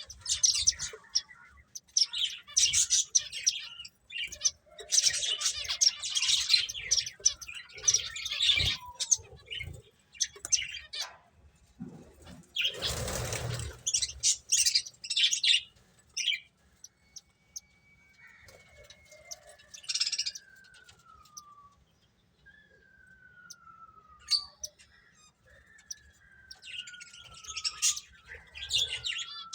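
Small finches chirping in quick clusters of high calls, with a short loud burst of noise near the middle and then several slow, falling whistles in the second half.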